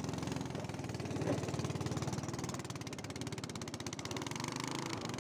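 Small boat engine running steadily with a rapid, even chugging.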